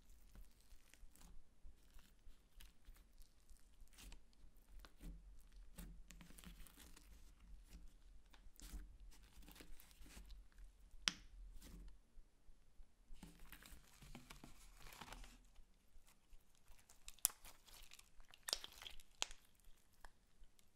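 Hands kneading, stretching and squeezing clear slime mixed with glitter and crushed make-up: faint sticky crackling and clicking, with a few sharper pops about halfway and again near the end.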